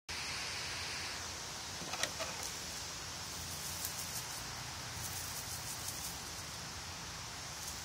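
Steady background hiss with a few faint ticks and rustles, about two seconds in and again between four and six seconds.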